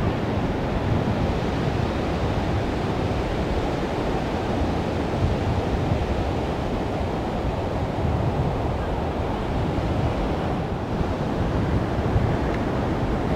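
Ocean surf washing onto the beach, a steady rushing noise, with wind rumbling on the microphone.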